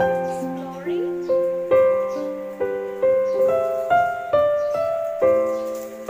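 Piano music: a gentle melody of single struck notes, each ringing and fading before the next, about two notes a second.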